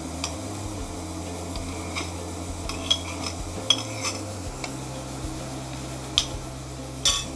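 Scattered light clinks and taps of a utensil and soft boiled red chillies against a glass blender jar as the chillies are tipped in, over a low steady hum.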